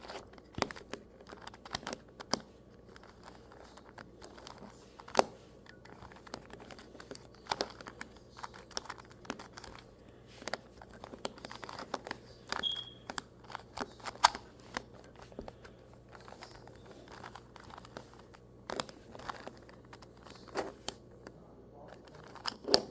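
A 2x2 Rubik's cube being turned by hand through an algorithm: irregular quick clicks and clacks of the plastic layers turning and snapping into place, with soft rubbing between them.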